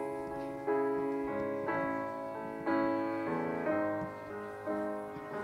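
Instrumental keyboard introduction to a hymn: slow chords, each struck about once a second and fading away.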